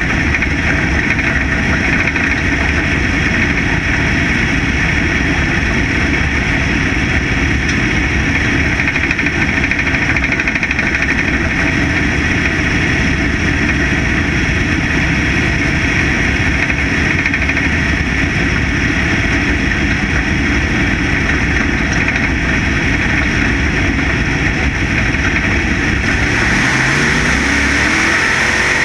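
Dirt-track factory stock race car's engine running hard at racing speed, heard from inside the car. Near the end the engine pitch climbs steadily as the car accelerates.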